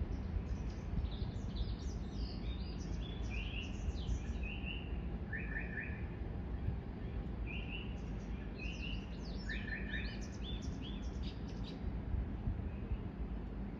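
Small birds chirping in quick runs of short, repeated high notes, over a steady low background rumble.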